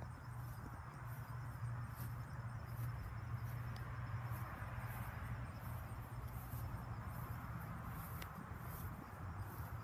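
Outdoor ambience: faint insects chirping in a steady, evenly pulsing high trill over a constant low hum.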